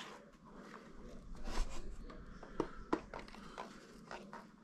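Faint handling noise from a foam-board model airplane being turned in the hand: light rustles and a few small clicks and taps.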